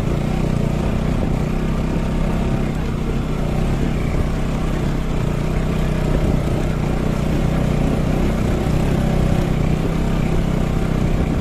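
Motorcycle engine running steadily while it is ridden along a rough, stony dirt track, heard from the rider's seat.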